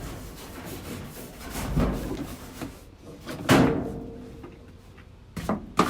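Hands handling things behind a washer and dryer: scraping and rustling, one loud knock about three and a half seconds in that rings briefly, then a few sharp clicks near the end.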